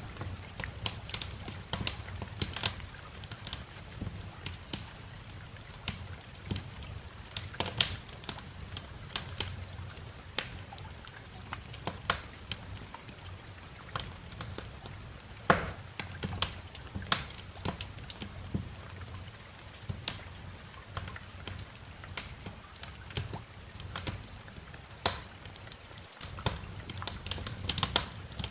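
Wood fire crackling in a fireplace: irregular sharp pops and snaps, several a second, over a low steady background.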